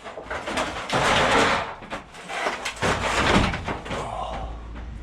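Van's rear doors being opened, with three bursts of metal rattling and scraping over the first four seconds, then a low steady rumble.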